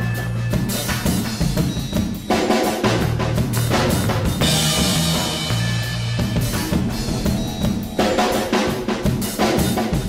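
Soundtrack music with a driving drum-kit beat of bass drum and snare over a steady bass line, with a cymbal wash in the middle.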